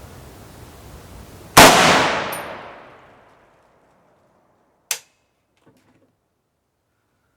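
A single shot from a Riley Defense RAK-308C, an AK-pattern .308 rifle, about a second and a half in, its report trailing off over a second and a half. A short sharp click follows about three seconds later.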